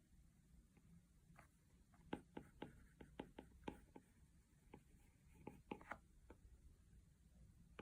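Faint light taps and ticks of a stylus on an iPad's glass screen while drawing, irregular and in quick clusters, over a low steady room hum.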